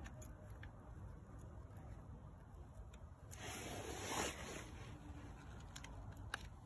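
Faint handling noise, with a brief rasping rub about three and a half seconds in and a light click near the end.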